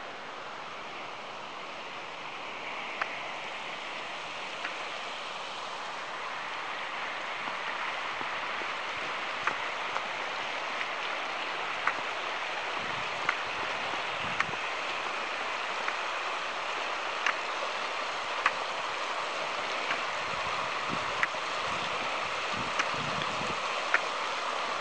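Shallow river running over rocks, a steady rush that grows gradually louder. Short sharp clicks come every second or so through most of it.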